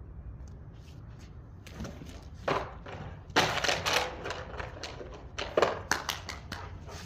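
Dog and child at rough play: a series of irregular thumps and scuffling knocks, the loudest cluster about halfway through.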